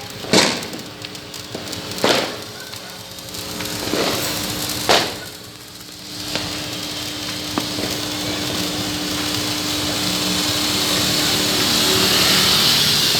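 Four sharp firecracker bangs in the first five seconds, then a steady hiss that grows louder through the second half.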